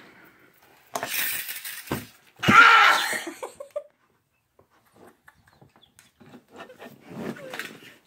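A girl laughing in two breathy bursts in the first few seconds, followed by faint clicks and rustling.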